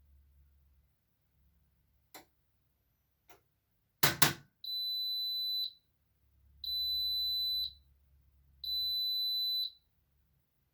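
Zanker EFX 4875 washing machine signalling the end of its programme: a couple of faint clicks and a sharp clunk, then three long, high beeps about two seconds apart.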